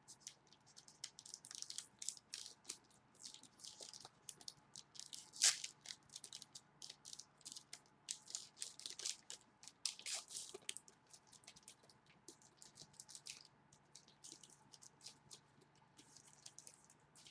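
A trading card pack wrapper crinkling as it is torn open, and cards being shuffled and handled: many short, irregular crackly rustles, the loudest about five and a half seconds in and again around ten seconds in.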